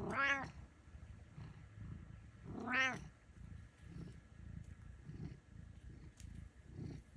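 Orange-and-white domestic cat meowing twice, about two and a half seconds apart; each meow is short and arches up then down in pitch.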